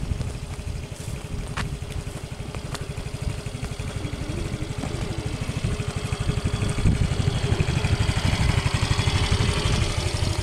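Motorcycle engine running with a fast, even low pulse, growing gradually louder.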